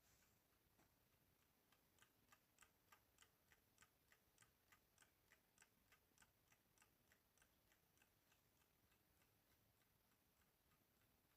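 Faint clock ticking, about three even ticks a second, loudest a couple of seconds in and fading away near the end.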